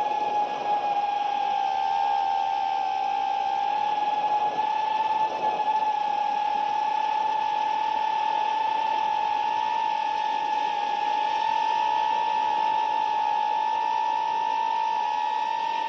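FPV quadcopter's brushless motors and propellers whining at a steady high pitch, heard from the drone's onboard camera, over a steady hiss.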